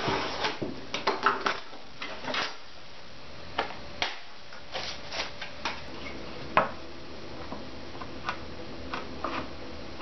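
A knife scoring a sheet of plexiglass along a steel square, a quick run of short scratching strokes, then scattered light clicks and taps as the plexiglass sheet is handled and slid into the grooves of a wooden frame, the sharpest click a little past halfway.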